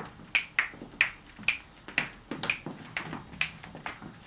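A series of short, sharp hand claps, two or three a second at an uneven pace.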